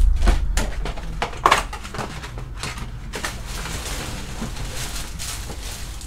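Foil booster-pack wrappers crinkling and tapping as a stack of Pokémon card packs is squared up on a table. The sounds come in a quick cluster, loudest about a second and a half in, then fade to a faint rustle.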